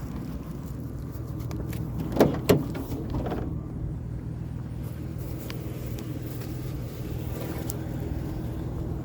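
Pickup truck engine running steadily, with two sharp clunks in quick succession a little over two seconds in.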